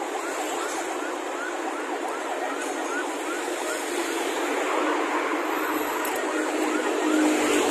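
Busy road traffic: cars, vans and motorcycles passing with a steady rush of engines and tyres, growing a little louder in the second half as vehicles pass closer. Over it, a short rising chirp repeats about two or three times a second.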